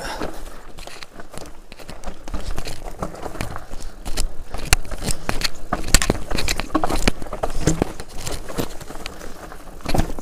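Mountain bike riding down rocky singletrack: tyres crunching over loose stones while the bike clatters with many irregular sharp knocks as it drops over rocks.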